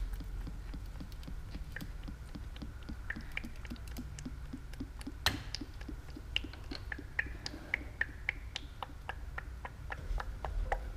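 Motor oil glugging from an upturned plastic quart bottle into a funnel in the engine's oil filler, air bubbling back into the bottle as short pops. The pops are sparse at first, then come about three or four a second in the second half, with one sharper click about halfway.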